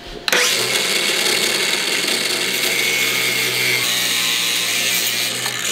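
Cordless angle grinder with a cutoff wheel spinning up about a third of a second in and running steadily, cutting a small bracket piece off; its motor begins to wind down in a falling whine at the very end.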